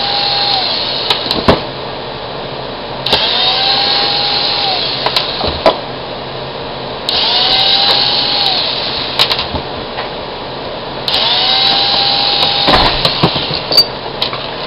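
Cordless drill backing out screws in short runs: the motor whines up to speed, holds briefly and winds down, four times about four seconds apart, the first run already going at the start. Sharp little clicks and clinks follow each run.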